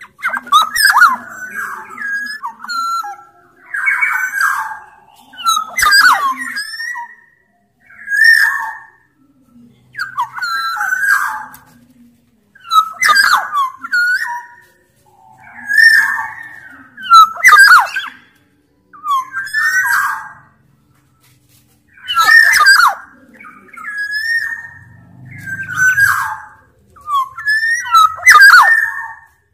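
Black-naped oriole (kepodang) singing: loud, short phrases repeated every one to two seconds, with sharp, high notes mixed into them.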